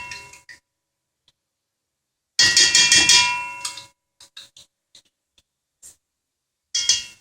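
Metal cookware clanging: quick runs of knocks with a ringing tone, typical of a utensil tapped against a pan while adding tomato paste to frying onion. The clanging comes as a run at the start, a louder run about two and a half seconds in, and another near the end.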